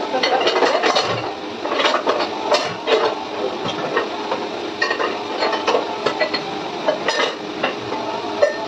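Dishes being washed under a running kitchen tap: steady water noise with frequent clinks and clatters of utensils knocking together.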